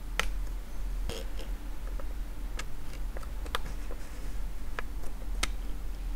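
Irregular sharp clicks, about nine over six seconds with three louder than the rest, over a steady low hum.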